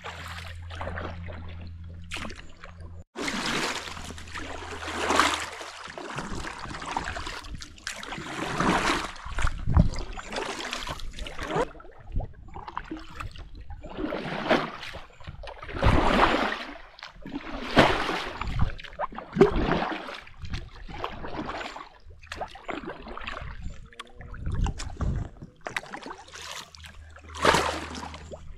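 Kayak paddle strokes in the water: irregular splashing swishes every second or two, with a few low knocks, as an inflatable kayak is paddled across the loch.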